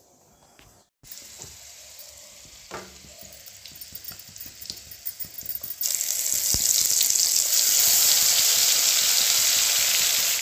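Wet ground spice paste going into hot oil in a kadhai: quiet crackling and spitting at first, then a loud, steady sizzle from about six seconds in as the paste hits the oil.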